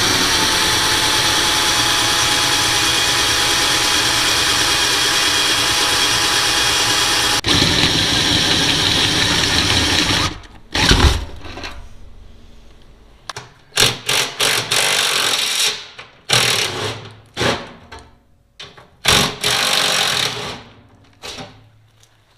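Handheld power drill drilling out a damaged bolt in an aluminum diamond-plate toolbox, running steadily for about ten seconds, then run in a string of short bursts that each spin down.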